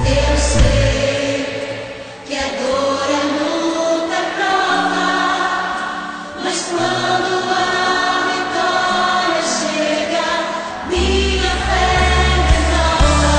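Gospel choir singing a hymn in full harmony with instrumental accompaniment. About eleven seconds in, a heavy bass and beat come in under the voices.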